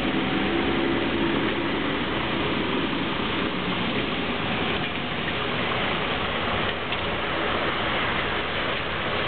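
Wet-road city traffic in rain: a steady hiss of rain and tyres on wet asphalt, with a heavy lorry's diesel engine running low as it pulls slowly past in slow traffic.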